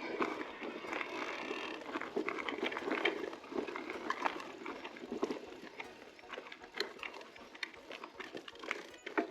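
Hardtail mountain e-bike riding over a rough woodland track: tyres crunching over stones and roots, with irregular clicks and rattles from the bike.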